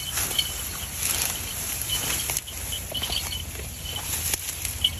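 Rustling and snapping of dry grass and stems, with a steady low wind rumble and a run of short, high chirps repeated many times, more often in the second half.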